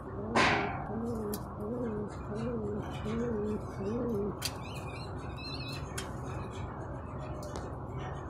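Domestic Peshawar pigeon cooing: a run of about six rising-and-falling coos, one every 0.7 seconds or so, stopping a little past four seconds in. About half a second in, a short loud rush of noise is the loudest sound.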